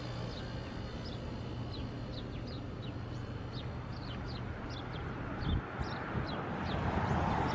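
Small birds chirping with many short, quick downward-sliding notes, over a steady low hum of street traffic. A louder rumble swells near the end.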